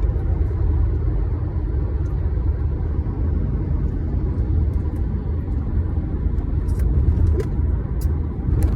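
A steady low rumble, with a few faint clicks near the end.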